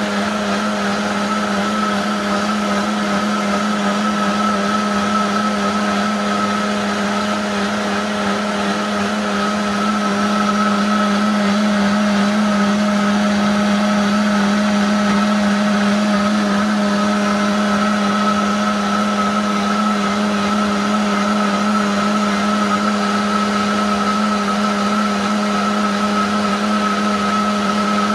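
Vitamix blender motor running steadily through a thick chocolate kale smoothie of banana, apple, carrot, kale, peanut butter and almond milk. It makes a steady low hum with a higher whine over it, growing slightly louder about ten seconds in.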